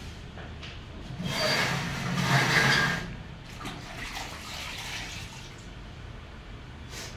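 Water splashing and sloshing in a plastic bucket as a wet floor cloth is rinsed in it by hand, loudest for about two seconds starting a second in, then quieter splashes and rustling.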